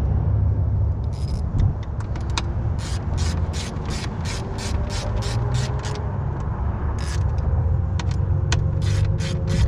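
Socket ratchet clicking as frame bolts are run in: a few scattered clicks, then steady quick strokes of about three clicks a second from a couple of seconds in, over a steady low rumble.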